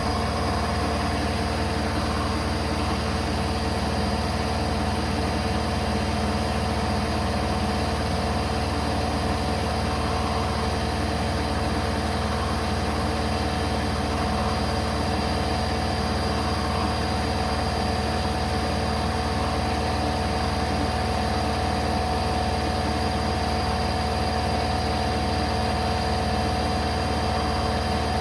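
A workshop machine running steadily: a constant hum with a thin high whine above it, unchanging throughout.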